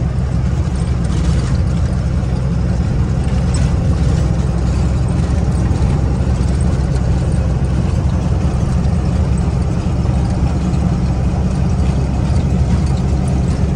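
Truck engine and road noise heard from inside the cab, the truck cruising steadily at about 40 km/h. It is a low, even drone with no change in pace.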